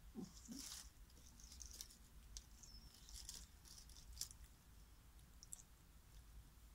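Faint, scattered small crunches and wet clicks of a dog nibbling and licking at dried salmon treat bits.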